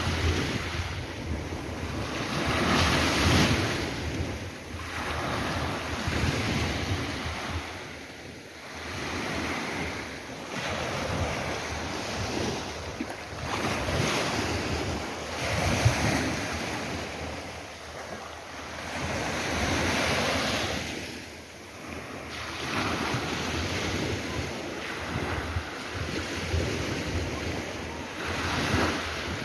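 Sea waves breaking and washing ashore, the surf swelling and easing every few seconds, with wind buffeting the microphone.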